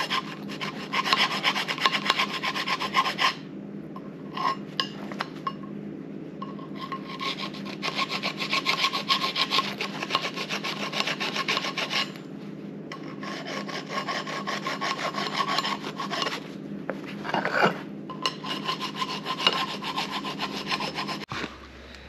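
Small hand file rasping back and forth on a metal shaft, filing out a keyway. The quick strokes come in several runs broken by short pauses.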